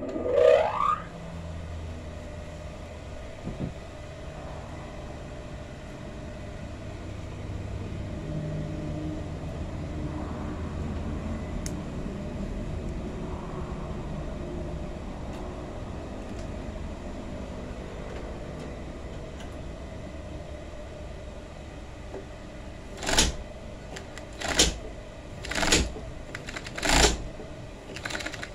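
Union Special 35800 industrial chainstitch sewing machine test-stitching a denim scrap in five short bursts of rapid stitching, about a second apart, near the end. Before that a steady low hum, and at the very start a brief loud rising whine.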